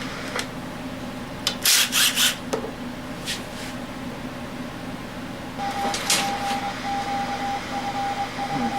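Hand tools and small metal engine parts clinking and knocking during a small-engine teardown, with a quick cluster of clanks about two seconds in. A steady high-pitched tone comes in a little past halfway, over a constant low hum.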